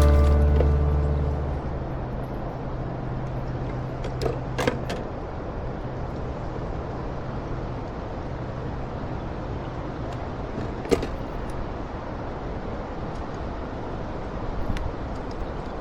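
Acoustic guitar music fading out at the start, then a steady outdoor rushing noise with a few sharp knocks or clicks, a cluster about four to five seconds in and one near the middle.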